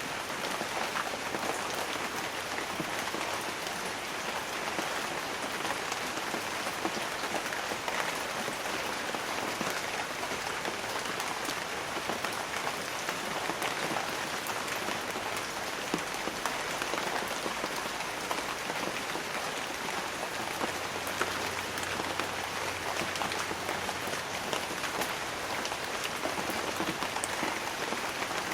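Steady light rain falling on banana leaves: an even hiss of rain dotted with many individual drops striking close by.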